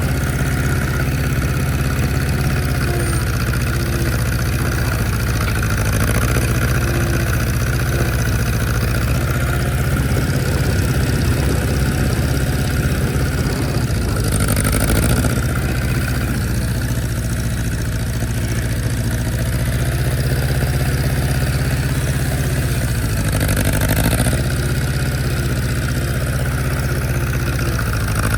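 A vehicle engine running steadily with a constant low hum, with two brief swells in its sound about halfway through and near the end.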